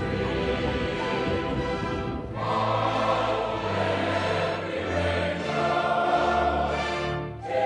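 Background music: a choir singing sustained chords with orchestral accompaniment, changing chord about two seconds in and again near the end.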